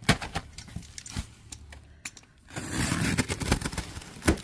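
Hands rummaging through a cardboard box of ceramic planters: a few sharp knocks and clicks, then from about halfway a longer stretch of rustling and scraping packing material.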